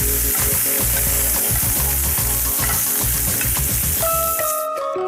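Chicken pieces sizzling as they sauté in butter and margarine in a hot ceramic frying pan, with small clicks of metal tongs against the pan. About four seconds in, a music sting comes in and the frying cuts off abruptly.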